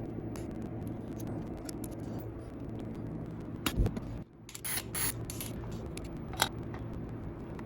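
Scattered clicks and knocks of hand tools and parts being handled while a motorcycle engine is taken apart, over a steady low hum; the loudest knock comes just before the middle.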